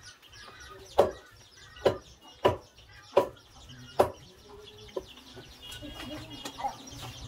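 Large butcher's knife chopping goat meat on a wooden chopping block: a run of sharp chops about a second apart, the last one lighter, stopping about five seconds in.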